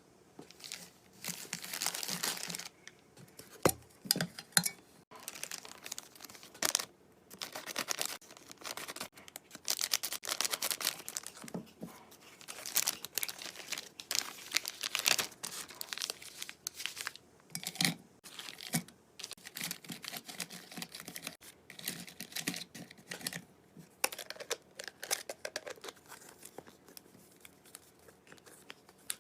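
Irregular dry rustling and crinkling in short bursts, with brief pauses between them.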